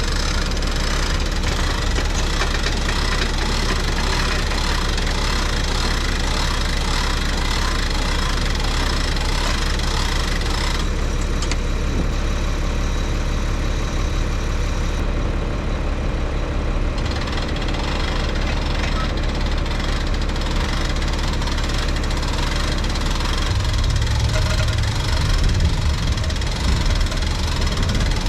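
Engine idling steadily, growing louder and deeper near the end.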